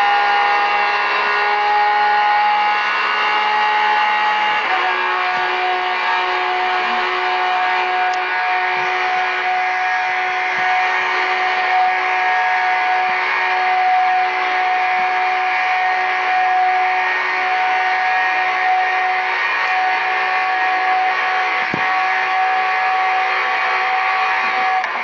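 Lamborghini Aventador V12 engine held at steady high revs, a constant drone that steps down slightly in pitch about four and a half seconds in and then holds again.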